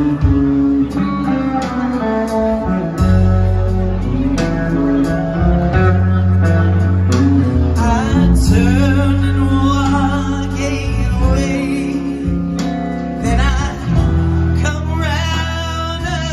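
Live band playing a song with electric guitar, bass and drums. A woman's lead vocal comes in about halfway through.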